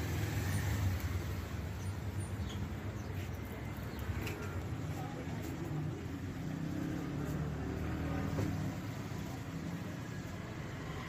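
Steady low rumble of background vehicle traffic, with a few faint clicks.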